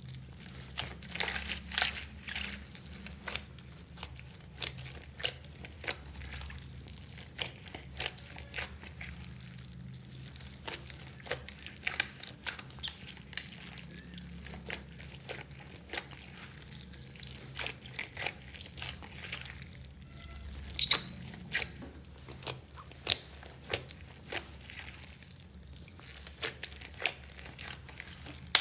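Hands squishing and kneading clear slime packed with small beads and plastic pieces: irregular sticky clicks, pops and crackles, with a few louder snaps.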